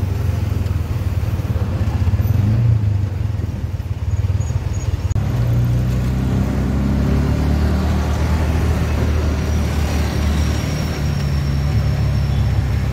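Auto rickshaw's small engine running as it drives, heard from aboard, with a steady low hum whose pitch climbs and shifts about halfway through as it picks up speed.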